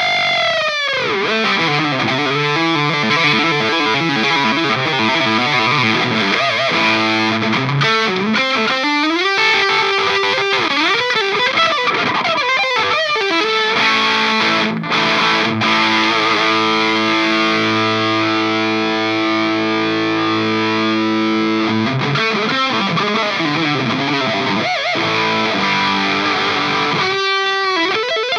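Electric guitar played with crunchy Marshall-style overdrive from a Nux Plexi Crunch pedal, through a Kelt Mostro Redhead amp and 2x12 cabinet. The lead lines use string bends that glide in pitch, with notes held for several seconds in the middle.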